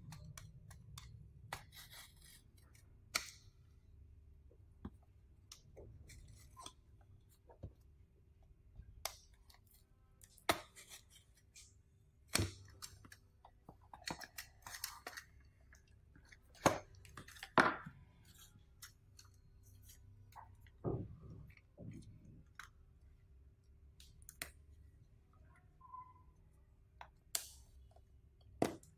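Cardboard Samsung Galaxy A7 retail box being opened by hand: a blade slitting the seal, then irregular scrapes, taps and light knocks of cardboard as the lid is slid off and set down on the table. A faint steady hum runs underneath.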